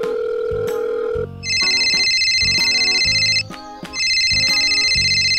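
A telephone sound effect: a steady dial tone for about the first second, then a phone ringing twice, each trilling ring about two seconds long with a short pause between.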